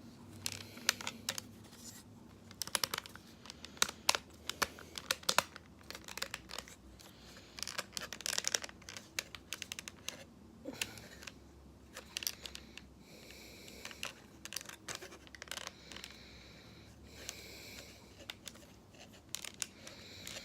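Plastic action figure being handled and transformed: irregular clicks, snaps and scraping of hard plastic parts being folded and pushed into place.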